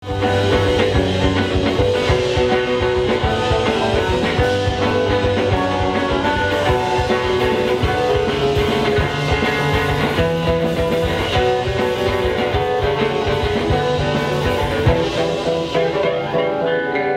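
Rock band playing: electric guitars and bass over a drum kit, at a steady, loud level.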